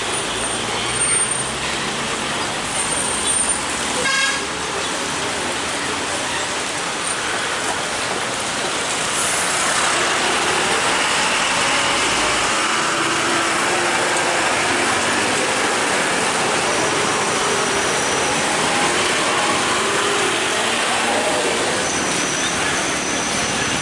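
Heavy road traffic on a wet road: truck and motorcycle engines running and tyres hissing, with a horn tooting now and then. The noise swells and stays dense from about nine seconds in.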